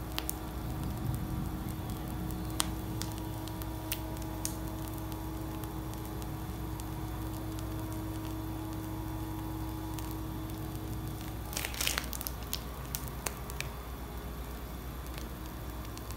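Plastic piping bag of whipped cream being squeezed as cream is piped, giving soft squishing with scattered small crackles and clicks. A brief louder rustle comes about twelve seconds in.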